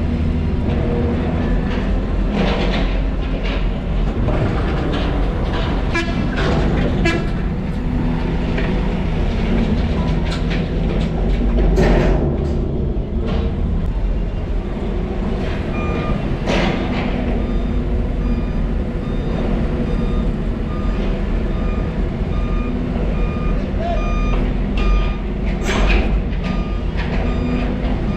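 Heavy diesel excavator running steadily, its bucket clanking and scraping against the steel cargo hold. From about halfway a back-up alarm beeps about once a second.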